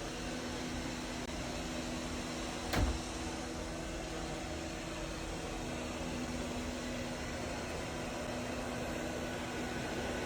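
MAMNV BR151 robot vacuum and mop running: a steady motor whir with an even hiss of suction and brushes. A single sharp knock about three seconds in.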